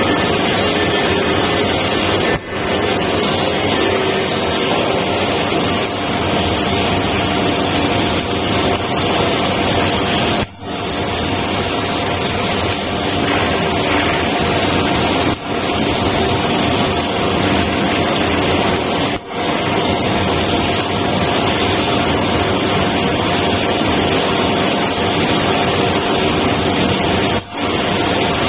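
Electric arc welding on steel: the arc gives a steady, loud hiss that cuts out for a split second about five times.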